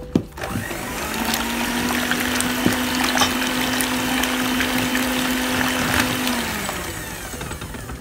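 Electric hand mixer running in ube cake batter in a stainless steel bowl: a steady motor hum with a whirring wash of noise, after a sharp knock near the start. The hum winds down near the end.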